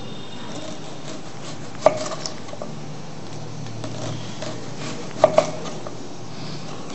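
A kitchen knife slicing vegetables into rings on a cutting board. A few sharp knocks of the blade on the board come about two seconds in, then twice in quick succession a little after five seconds.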